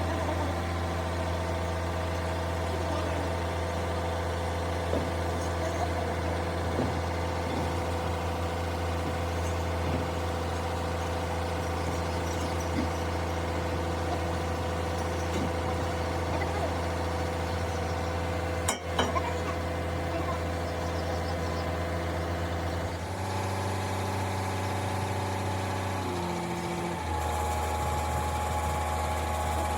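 A machine running steadily with a low, even hum, like an engine idling. There is one sharp knock about two-thirds of the way through. The hum's pitch shifts abruptly twice near the end.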